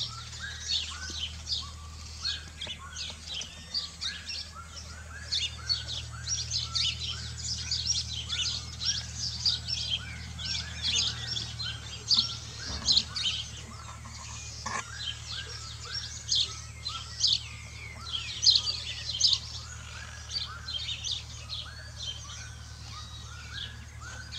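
Many birds chirping and calling at once in a dense, continuous chorus of short high notes, over a steady low hum.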